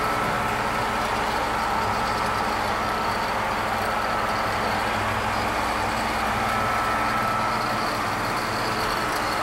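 Baldor bench grinder's electric motor running steadily with no load: an even hum with a thin high whine. It spins freely, and the seller suspects a slight wobble.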